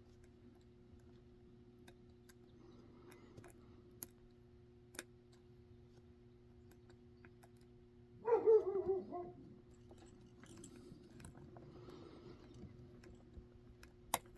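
Faint, sparse clicks of a lock pick and tension wrench working the pins of a Zeiss Ikon pin-tumbler lock during single-pin picking, over a steady low hum. About eight seconds in, a short pitched whine falls in pitch over about a second.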